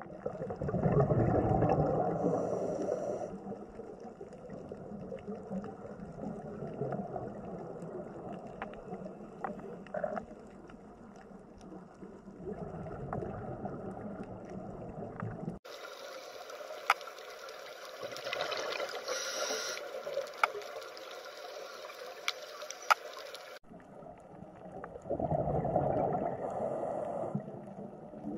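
Underwater ambience picked up by a camera in the water: muffled rushing and bubbling, with a louder surge of bubbling near the start and another near the end. About halfway through the sound changes abruptly to a hissier wash with scattered sharp clicks, then switches back.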